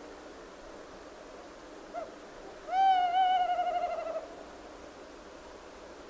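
Owl hooting: one short note about two seconds in, then a long quavering hoot of about a second and a half that falls slightly in pitch. A faint steady hiss runs underneath.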